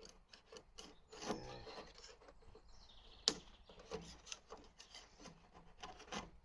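Loose paint being scraped and peeled off a steel car door: irregular scrapes and small crackles as flakes lift away, with one sharp click about three seconds in. The paint is coming off easily because it has lost its grip on the primer and filler underneath.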